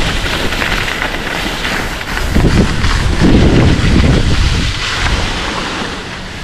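Wind buffeting the camera microphone while skiing downhill, with the skis scraping and hissing over packed snow; the rumble swells for a couple of seconds midway, then eases as the skier slows.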